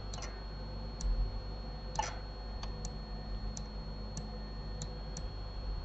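About ten sharp clicks of a computer mouse, spaced unevenly, over a faint steady electrical hum.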